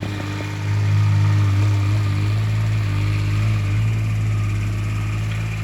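Engine of heavy earthmoving equipment running steadily while spreading asphalt millings, getting louder about a second in.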